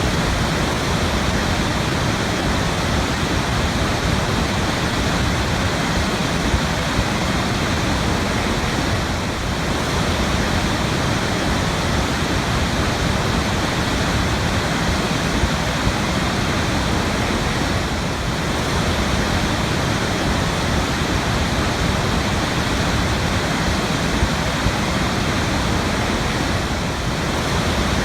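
Waterfall: water falling steadily, an even, unbroken rush of noise spread from deep to high pitches.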